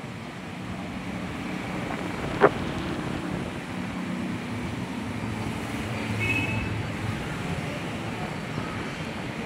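Steady background traffic noise, with one sharp plastic click about two and a half seconds in as a wiring connector behind the motorcycle's speedometer is worked loose. A brief faint high squeak follows about two thirds of the way through.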